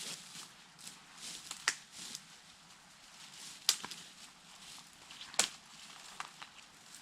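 Dry branches being snapped by hand amid rustling twigs: three sharp cracks roughly two seconds apart, the middle one loudest, as firewood is gathered.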